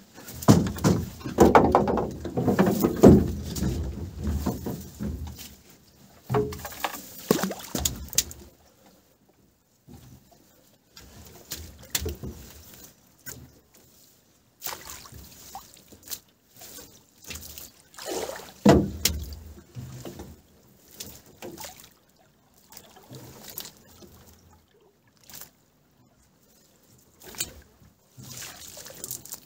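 A small boat being poled along a riverbank with a long wooden pole: water sloshing and splashing with scattered knocks, in irregular bursts. The loudest stretch is in the first several seconds, with another strong burst about two-thirds of the way in, and quiet gaps between.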